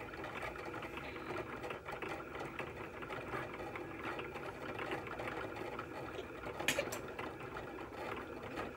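Cricut cutting machine running, its carriage moving the blade along the printed design's outline to cut a printable iron-on transfer sheet, with one short sharp click near the end.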